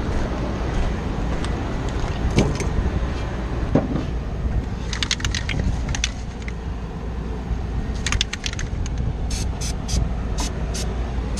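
Small metal parts and tools clinking in short clusters of light clicks, about halfway through and again near the end, over a steady low rumble.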